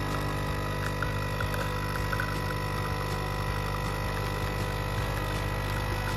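Nespresso capsule machine's pump buzzing steadily while it brews coffee into a cup.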